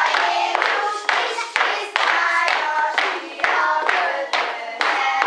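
Young children singing together, with hand claps keeping a steady beat of about two a second.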